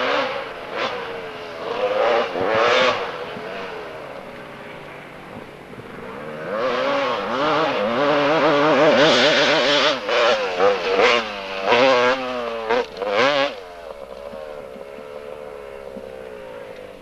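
Enduro motorcycle engine revving hard, its pitch rising and falling quickly with the throttle. It is loudest as the bike passes close, from about seven to thirteen seconds in, with sharp bursts of throttle near the end before it fades.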